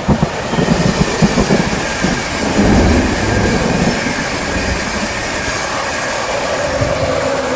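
Rain with a low rumble and several steady whining tones over it; near the end a lower tone slides down a little in pitch.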